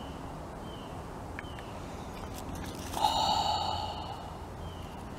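A short breathy sound from a person about three seconds in, over a faint steady background hiss.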